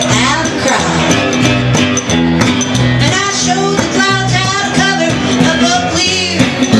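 Live country music: a woman singing lead over a strummed acoustic guitar and an electric bass, with a steady beat.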